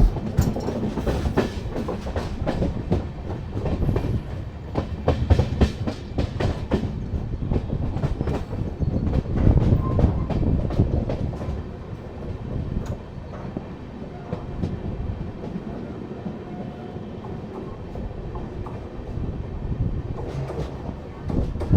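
A train running on the rails, its wheels clicking over the rail joints in a rapid clickety-clack over a low rumble. The clicks thin out and the sound drops to a quieter, steadier rumble about twelve seconds in.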